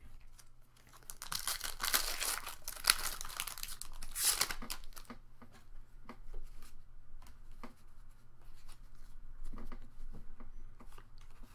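Foil Pokémon booster pack wrapper being torn open and crinkled for a few seconds, followed by light clicks and taps of the cards being handled.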